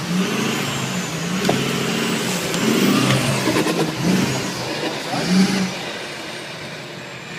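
Off-road pickup truck's engine revving hard under load as it claws up a dirt bank, its pitch rising and falling over and over.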